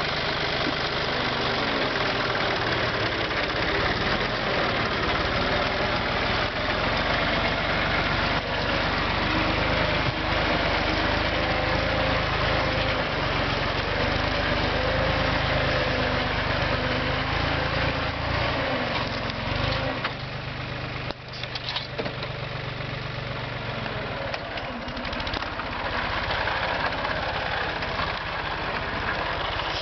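Yanmar FX22D compact diesel tractor engine running steadily. Its sound drops for a few seconds about two-thirds of the way through, then comes back up.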